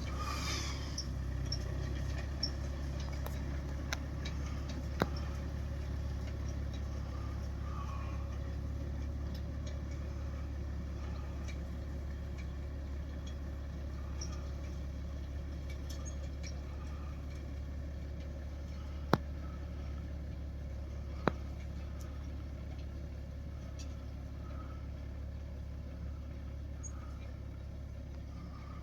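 Tractor engine running steadily as a low drone, with a few sharp clicks, two of them louder in the second half.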